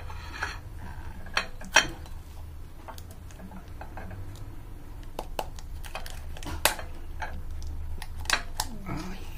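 Thin plastic dessert cup clicking and crackling as it is squeezed and pressed upside down on a ceramic plate to release a flan, with scattered sharp clicks and light knocks.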